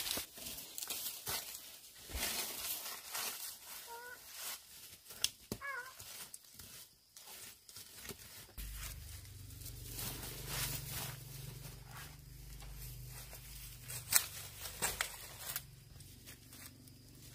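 Scattered clicks and rustling, with two short, faint animal calls a few seconds in. A steady low hum starts a little past halfway.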